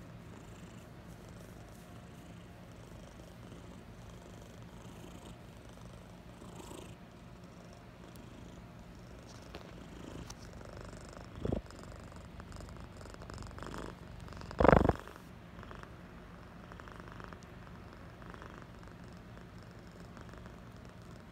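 Domestic cat purring steadily, close up, while being stroked on the head. Two brief bumps break in, one about eleven seconds in and a louder one near fifteen seconds.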